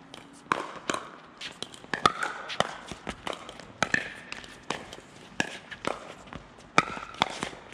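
Pickleball rally: paddles striking the plastic ball in a quick back-and-forth of sharp pops, about one every half second to second, some with a short ringing tone.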